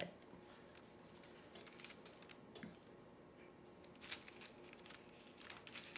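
Faint, soft squishes and scrapes of a spoon spreading a creamy crawfish filling onto halved French bread, with a few light clicks, the clearest about four seconds in.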